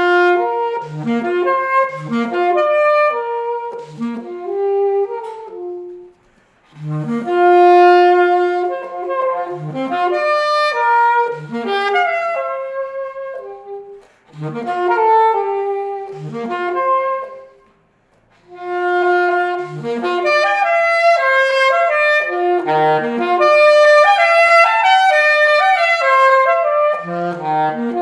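Saxophone playing a jazz melody in phrases of quick, shifting notes, with short breaths between phrases about six, fourteen and eighteen seconds in.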